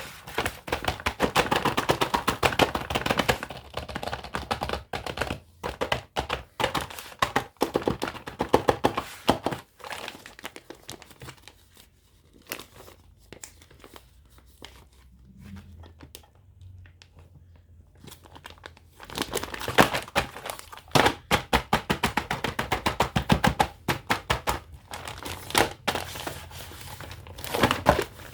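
Toy packaging being unwrapped: plastic crinkling and tearing in bursts of dense crackling, with quieter stretches in between and the busiest handling in the first few seconds and again from about twenty seconds in.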